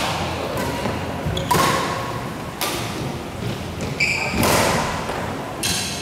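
Badminton rally: a few sharp racket-on-shuttlecock hits, each ringing on in a large hall, with short squeaks of court shoes on the floor near the end.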